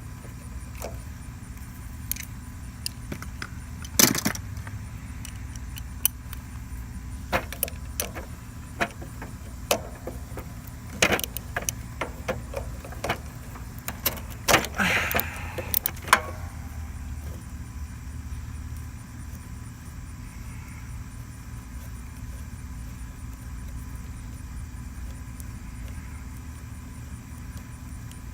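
Irregular metallic clicks and clinks of a 13 mm socket wrench working a nut off a riding mower's starter relay terminal, with a quick flurry of clinks just before they stop a little past halfway. A steady low background rumble runs underneath.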